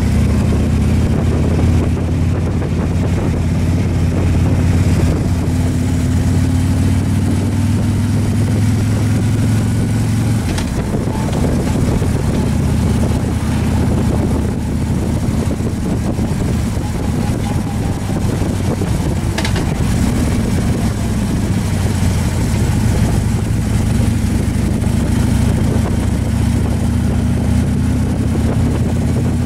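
Touring motorcycle engine running under way, with wind and road noise. The engine note eases off about ten seconds in and climbs again in the last few seconds as the bike picks up speed.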